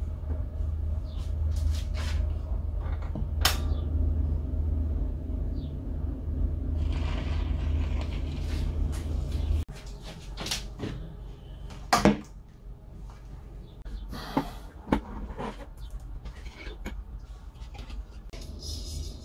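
Steady low hum and rumble from an old valve radio-gramophone playing with its record sound removed, broken by a few sharp clicks and knocks. The hum drops away suddenly about ten seconds in, and near the end a hiss comes in as the radio's controls are handled.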